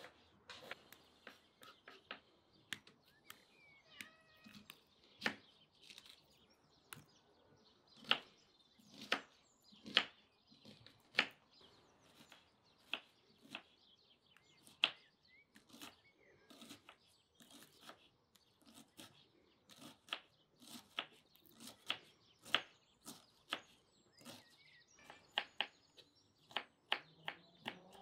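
Irregular knocks and taps of food preparation on a wooden cutting board, mostly a kitchen knife striking the board, one or two a second at uneven strength. Birds chirp faintly now and then in the background.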